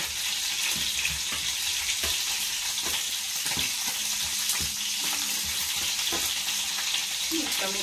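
Lamb ribs sizzling in hot oil in a non-stick frying pan: a steady frying hiss. Tongs clack and scrape against the pan now and then as the ribs are turned.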